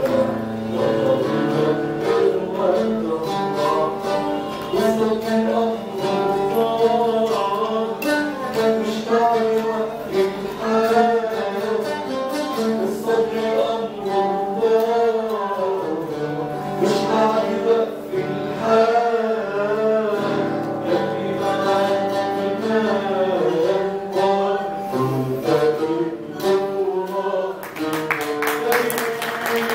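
A man singing while strumming and plucking an oud, his voice sliding between held notes over the instrument. Near the end the audience starts clapping.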